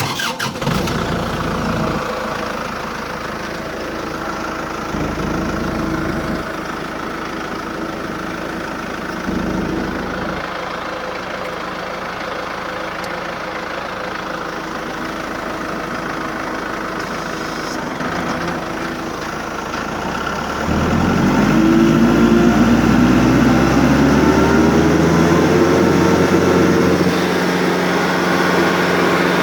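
Tractor engine that powers a Woods TSG50 stump grinder, starting and then idling steadily. About 20 seconds in it gets louder and a rising whine climbs for several seconds before levelling off, as the machine is brought up to speed.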